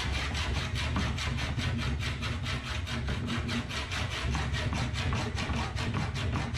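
A small power-tool motor running steadily, with a fast, even pulsing.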